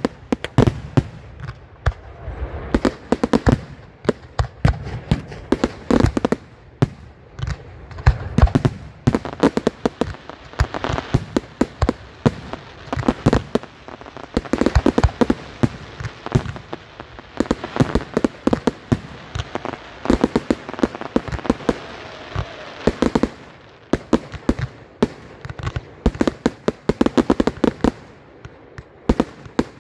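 Firework display: a continuous barrage of sharp bangs and crackles from aerial shells bursting, in dense clusters with short lulls between.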